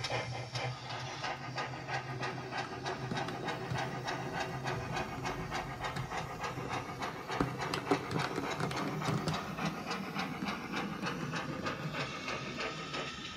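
DCC sound decoder in a model GWR-type pannier tank locomotive playing a steam-engine sound file through its small onboard speaker: a steady, quick, even beat of exhaust chuffs with hiss as the model runs. The level drops slightly near the end.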